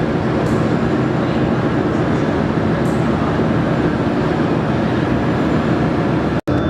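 Steady, loud machinery noise with a low rumble, unchanging throughout; it drops out for an instant near the end.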